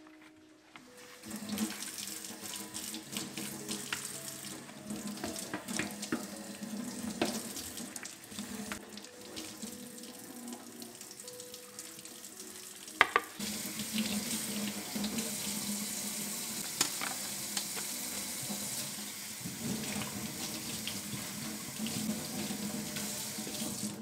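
Kitchen faucet running into a stainless steel sink, the water splashing over a dishwasher spray arm being rinsed under it. A single sharp knock about halfway through, after which the water sounds fuller.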